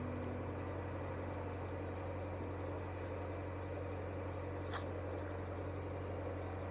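A narrowboat's inboard engine running steadily at cruising speed, a constant low hum carried through the hull. A single brief click about five seconds in.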